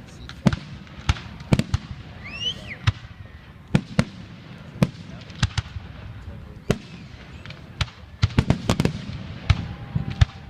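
Fireworks going off in a finale: a rapid, irregular series of sharp bangs from bursting aerial shells, crowding together into a dense volley about eight seconds in.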